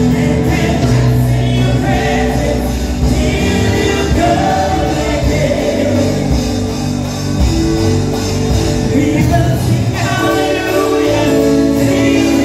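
Gospel worship song: a group of singers with microphones singing together over instrumental backing with steady bass notes.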